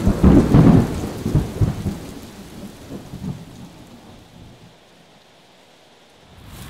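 Thunder rumbling over rain, loudest in the first couple of seconds, then dying away until only faint rain hiss is left.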